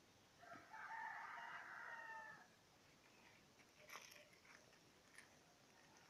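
A rooster crowing once, faint, in one call about two seconds long that falls slightly at its end; a soft click follows a couple of seconds later.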